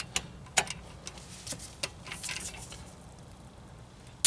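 A handful of sharp metallic clicks from a torque wrench and socket on a wheel lug nut, the loudest about half a second in, as a lug nut already torqued to 70 foot-pounds is rechecked.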